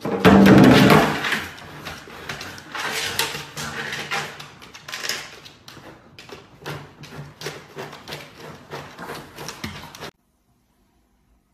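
Empty plastic water-cooler jug knocked, bumped and scraped across a hardwood floor as a dog pushes it about: a string of hollow knocks and scrapes, loudest in the first second or so. It stops suddenly about ten seconds in.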